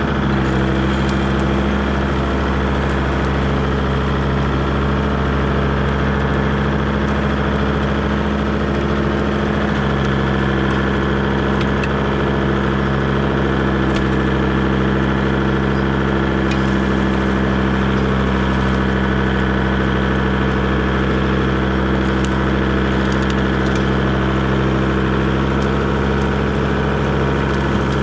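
Kubota tractor's diesel engine running at a steady speed while skidding a large white oak log, with a few faint clicks and knocks over the top.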